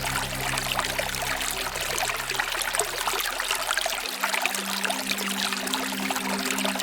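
Waterfall water pouring and splashing steadily. Soft low held notes of background music fade out about three seconds in, and a faint held tone carries on beneath the water.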